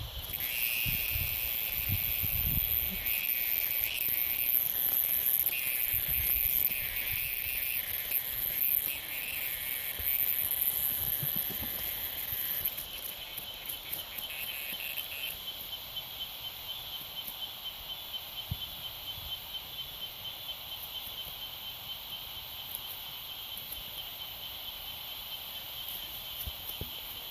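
Cicada giving a loud, ragged distress buzz, the sound of a cicada caught by a cat, stopping about halfway through. A steady, pulsing insect chorus goes on underneath.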